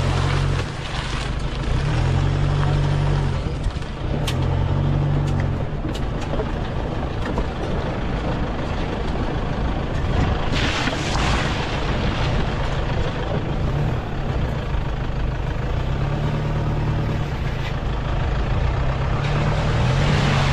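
Wind buffeting the microphone: a loud, uneven low rumble over a steady rushing hiss.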